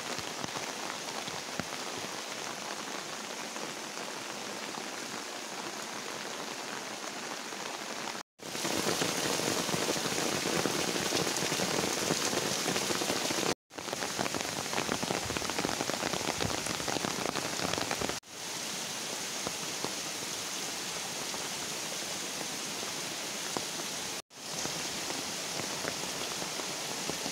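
Steady rain falling on trees and foliage, an even continuous patter with no single drops standing out. It cuts out for an instant four times and comes straight back, heaviest for a few seconds about a third of the way in.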